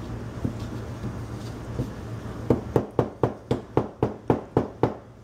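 About ten quick, evenly spaced knocks, roughly four a second, starting about halfway in, as garlic is broken up on the kitchen counter.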